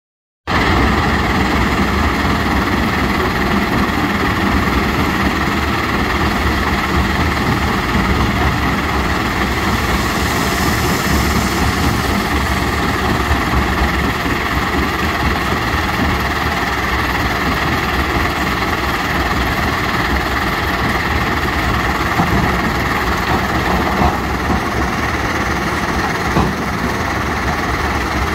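Jonsson 1208 mobile jaw crusher running together with a tracked screening plant and excavator: a loud, steady din of diesel engines and crushing machinery. A few brief knocks stand out in the last several seconds.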